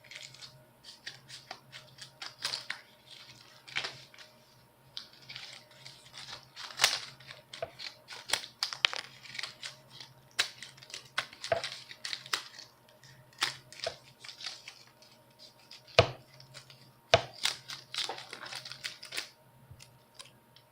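Scissors cutting paper: an irregular string of crisp snips and short rasping slides of the blades through the sheet, with two much louder snips about three-quarters of the way through, stopping shortly before the end.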